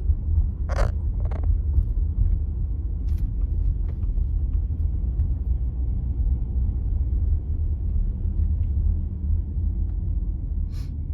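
Car driving slowly, heard from inside the cabin as a steady low rumble of engine and tyres, with a few short sharp knocks.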